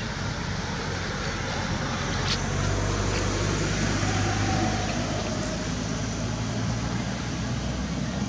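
A motor vehicle engine running steadily with a low hum that grows a little louder through the middle, with one sharp click about two seconds in.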